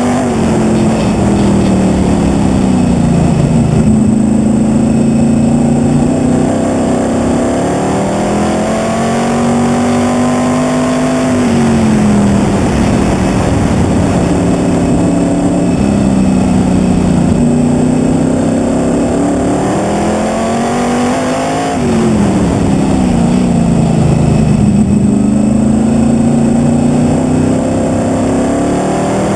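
Sprint car engine heard from on board the car at racing speed. Its note drops sharply three times as the driver lifts for the turns and climbs again each time the car accelerates down the straight.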